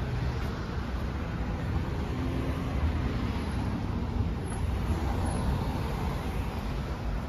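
Street traffic: a steady rumble of cars running along the road.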